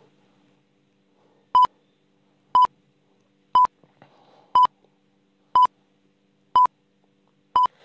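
Electronic stopwatch timer beeps: seven short, identical beeps, one each second, counting off the seconds of a timed exercise.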